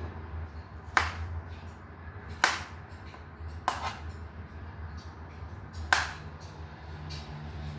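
A kitchen knife cuts through plantain and knocks on a cutting board four times, one to two seconds apart, over a low steady hum.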